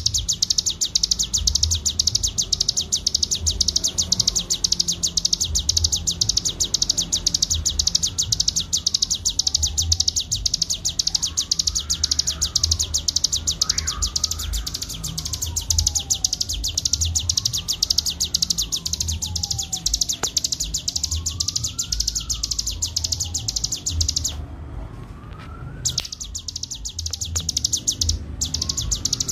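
Ciblek gunung songbird singing in its 'ngebren' style: a loud, very fast, high buzzing trill that runs on almost without pause, breaking off twice briefly in the last few seconds. Under it, a fainter whistle rises and falls every few seconds.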